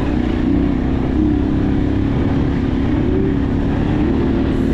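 Habal-habal motorcycle engine running under load on a rough, rutted road, its pitch wavering up and down as the throttle is worked, over a steady rumble of wind and road noise.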